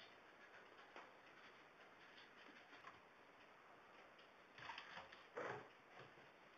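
Faint ticking of a vintage pendulum wall clock, about once a second, with two brief soft knocks or rustles a little past the middle.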